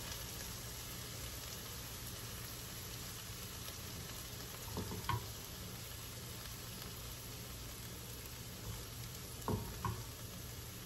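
Sliced beef, mushrooms and onions sizzling steadily in a frying pan on residual heat with the burner switched off. A few short clacks from tongs lifting the filling come about five seconds in and again near the end.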